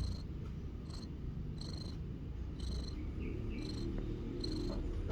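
A cat breathing with a steady, low purring rumble. A faint high chirp comes back about once a second.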